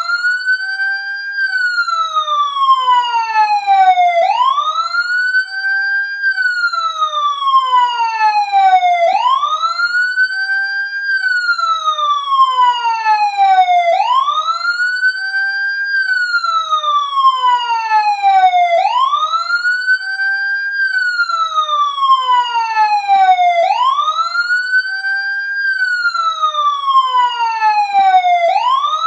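Loud emergency siren wailing. Each cycle sweeps quickly up in pitch, holds briefly at the top, then falls slowly, repeating about every five seconds, six times.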